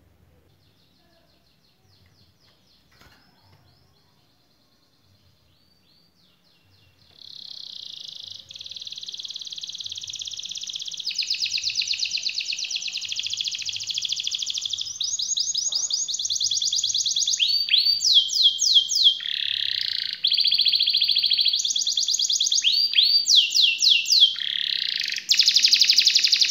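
Domestic canary singing. A few soft scattered notes give way, about a quarter of the way in, to a long, loud rolling song of fast continuous trills. The song grows louder and, in the second half, breaks into rapid sweeping phrases.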